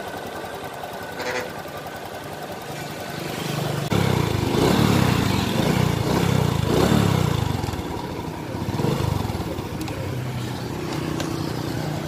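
Honda Future X FI's 125 cc fuel-injected single-cylinder four-stroke engine idling, then revved up on the throttle about four seconds in, twice rising and falling, before settling back to a steady idle.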